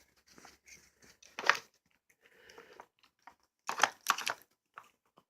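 Small dog working a drawer-and-peg treat puzzle: sharp clacks as the puzzle's drawers and parts are knocked and pulled, the loudest about a second and a half in and a pair near four seconds in, with softer scuffling and mouthing between them.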